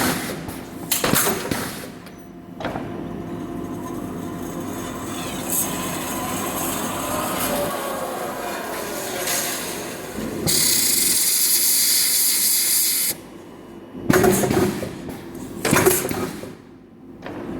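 Workshop machinery processing bandsaw blade stock: metal knocks and clanks, a steady mechanical run with a slowly gliding whine in the middle, and a hiss of about two and a half seconds about two-thirds of the way through.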